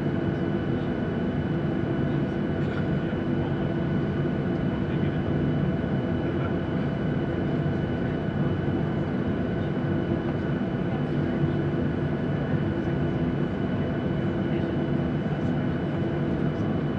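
Jet airliner engines running while the plane taxis, heard inside the cabin: a steady low rumble with a few steady tones over it, unchanging in level.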